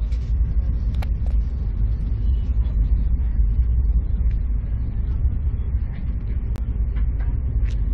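Steady low rumble of a moving passenger train heard from inside its coach, with a few sharp clicks.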